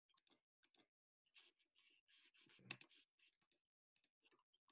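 Near silence with a few faint computer mouse clicks, one a little louder nearly three seconds in.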